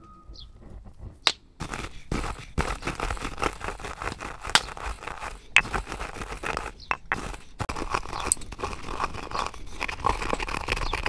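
Dried thyme being crushed and rubbed between fingers in a small wooden cup: a dense, dry crackling and scraping that starts about a second and a half in, with sharp clicks scattered through it.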